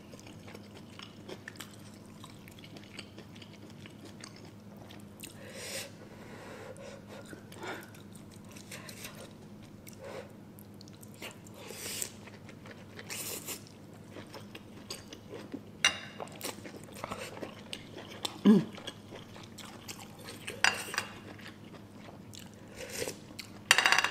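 Close-up mouth sounds of chewing and biting into king crab leg meat and noodles, with scattered small crunches and wet smacks. About three-quarters of the way through there is one short falling hummed "mm".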